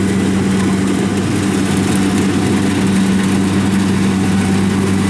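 Kubota combine harvester's diesel engine running steadily with an even hum as the machine cuts rice.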